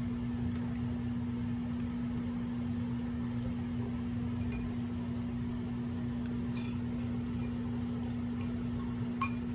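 A steady electrical hum with scattered light, glassy clinks, one sharper clink about nine seconds in.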